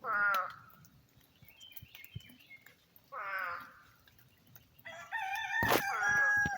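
Chickens calling: two short calls about three seconds apart, then a longer, steadier call near the end. A small bird chirps faintly between them, and a sharp knock cuts through the last call.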